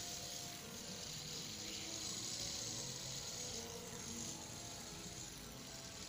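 Blue metal fidget spinner spinning with a faint, steady whir.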